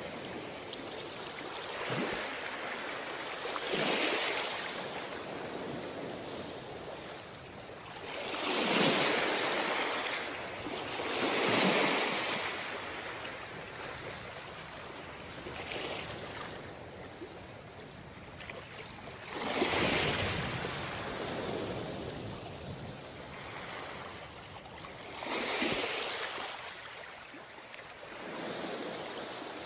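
Ocean surf: waves breaking and washing up the beach in repeated swells a few seconds apart, over a steady hiss of water between them.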